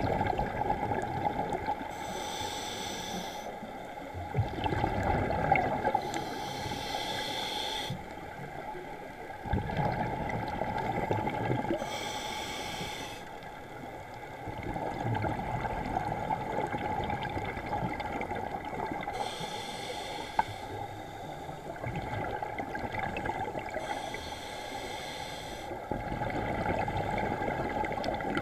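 Scuba diver breathing through a regulator, heard underwater through the camera housing. There are five hissing breaths in, spaced several seconds apart, each followed by a longer bubbling rush of exhaled air.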